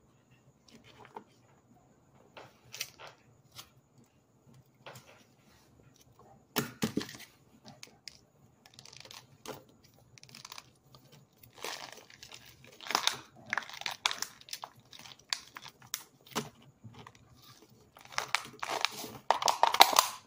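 Baked cornstarch, packed and dried hard inside a plastic water bottle, crunching and crumbling as it is broken up by hand, with crinkling of the bottle's plastic. Scattered crackles at first, growing denser and louder over the last several seconds.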